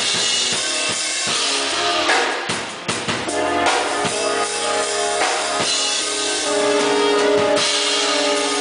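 Band music: a drum kit with bass drum and cymbals under guitar and held pitched notes.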